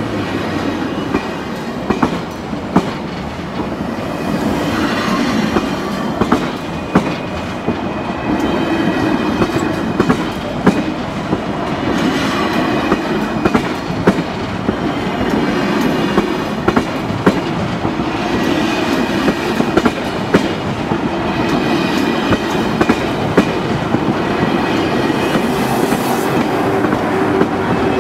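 TGV carriages rolling past close by, a steady rumble of wheels on rail broken by a sharp clack every second or two as the wheels cross rail joints and points.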